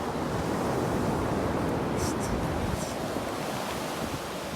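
Sea waves washing onto a beach: a steady rush of surf that swells to its loudest about a second in.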